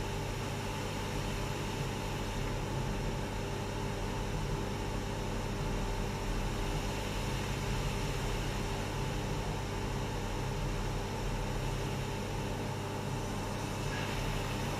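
Steady electric machinery hum with a hiss, from the skid conveyor that carries and turns a bare car body shell.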